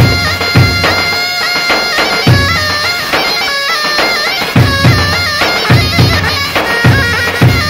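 Zurna (mizmar) playing a loud dabke dance melody that steps between held notes with quick ornaments, over the deep, regular beats of large double-headed tabl drums struck with sticks.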